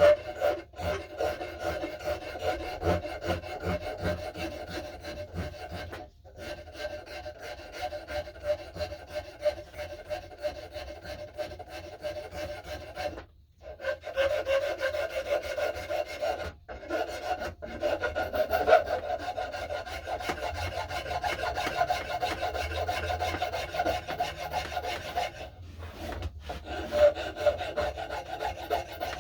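Wooden axe handle being shaped by hand with a rasp: fast, continuous scraping strokes across the wood, broken by a few brief pauses.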